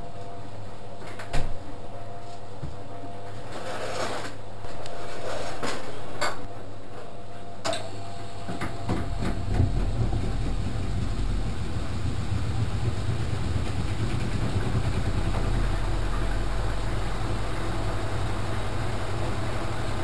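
Front-loading washing machine running, a steady motor hum with a few sharp clicks in the first half. About halfway through, a louder low rumble sets in as the drum turns, and it carries on steadily.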